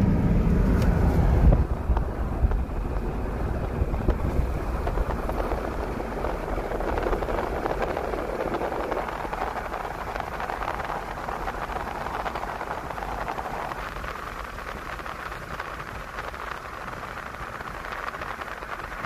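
Steady road and wind noise of a moving car, heard from inside the cabin. A deep rumble drops away about a second and a half in, and the remaining rush slowly gets quieter.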